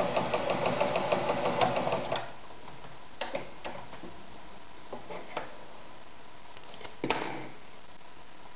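A 1975 Pfaff 294 sewing machine with a vertical rotary hook stitching through stretch knit, ticking in a fast, even rhythm. It stops about two seconds in. A few separate clicks and knocks follow, the loudest near the end.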